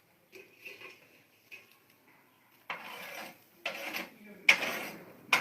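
Close crunching and chewing of crisp singju salad, loud right at the microphone. It starts a little past halfway, with four or five separate crunches.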